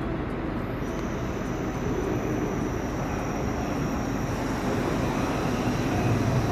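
N700S Kamome Shinkansen train arriving at the platform: a steady rumble of the approaching train that slowly grows louder, deepening toward the end as it comes alongside.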